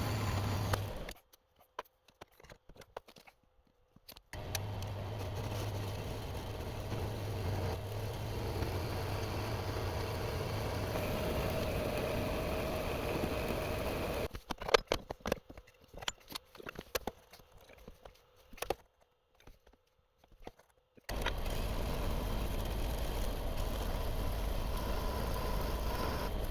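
Metal-cutting bandsaw running steadily in three stretches, separated by quiet gaps with scattered clicks and knocks. The bandsaw's drive belt is worn and shredded.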